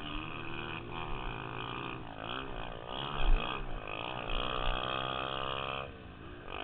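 Dirt bike engine under way on a motocross track, revs rising and falling with the throttle, then held high for a couple of seconds before easing off near the end. A sharp thump stands out about three seconds in.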